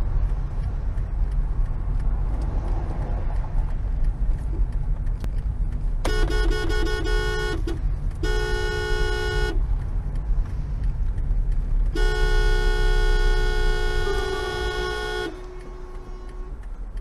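Car horn honking over steady road and engine rumble heard from inside a car: a quick string of short toots about six seconds in, a blast of about a second and a half, then a long blast of about three seconds. The rumble drops a little after the last blast as the car slows.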